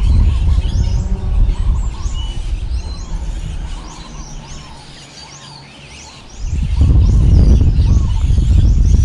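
Strong wind gusting with a low rumble, easing to a lull in the middle and surging back abruptly about six and a half seconds in. Many small birds chirp throughout.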